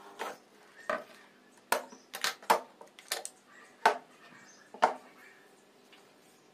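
Wooden blocks and plastic quick-release clamps being handled and knocked against a wooden workbench: about ten irregular sharp knocks and clacks.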